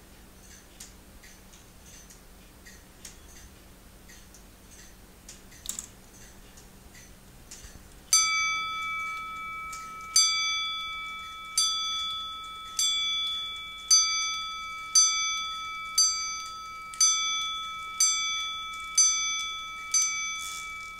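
Homemade K'nex clock's striking train sounding the hour: a bell is struck eleven times, about a second apart, each strike ringing on into the next. Before the striking starts there is faint escapement ticking and a couple of quiet clicks.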